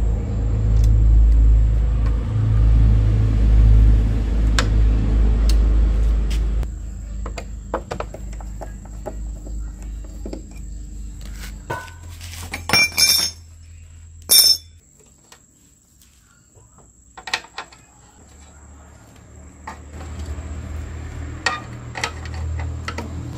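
Screwdriver work on the sheet-metal base plate of a TV stand: small clicks and scrapes of the driver in the screws and on the metal, and two sharp metallic clinks that ring briefly, a little past the middle, as the plate is handled. A low rumble fills the first six seconds or so and comes back faintly near the end.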